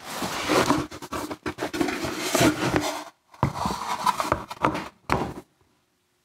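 A plaster slip-casting mold scraping, rubbing and knocking against a wooden board as it is turned over onto the board and shifted, in two spells of handling that stop about five and a half seconds in.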